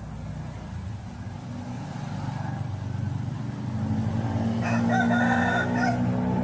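A rooster crows once, about five seconds in, a call lasting a little over a second. Under it runs a steady low hum that grows louder.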